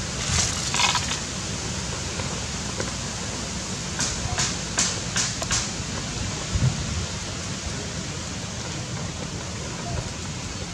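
Steady outdoor wind noise on the microphone with a low rumble, a brief rustle near the start, and a quick run of four short crackles about four to five and a half seconds in.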